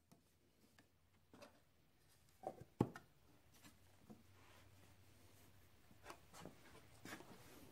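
Light clicks and taps of a metal paint can's lid being fitted and pressed down on the can, with one sharper knock about three seconds in, over a faint steady hum.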